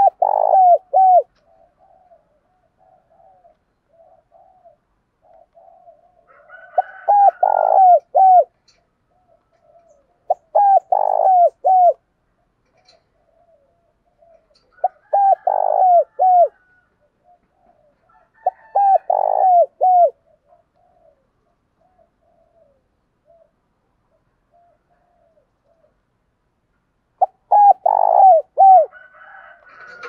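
Spotted dove cooing: six short phrases of several falling coo notes, spaced a few seconds apart, with faint low cooing murmurs in between. It is the calling song of a caged decoy dove.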